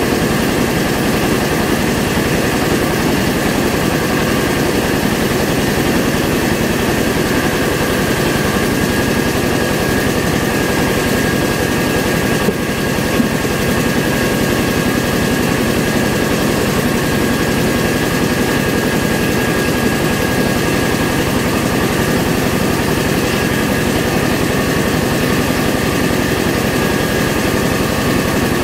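Mobile rice mill running steadily as it hulls and polishes rice: a dense, even machine hiss with a steady high whine that holds unchanged.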